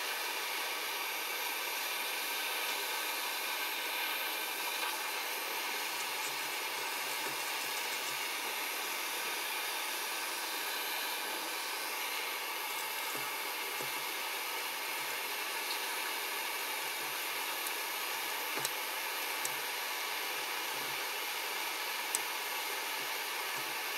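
Handheld propane torch burning with a steady hiss as its flame heats an aluminium pop can for brazing with an aluminium rod. A few faint light ticks come in the second half.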